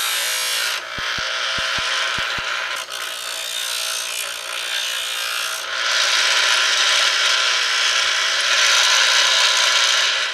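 Pedestal grinder wheel grinding a high-speed steel lathe threading tool held in a fixture, with a steady hiss of grinding and the fixture rattling as it vibrates: a lot of racket. The grinding eases about a second in and grows louder again past the middle.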